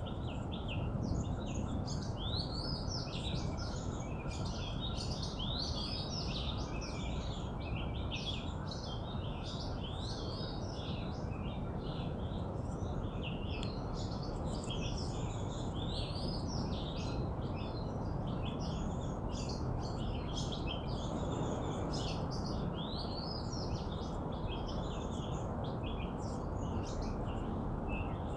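Small birds chirping and singing without pause: many short notes and quick rising whistles, overlapping as from several birds. A steady background hiss and rumble sits beneath them.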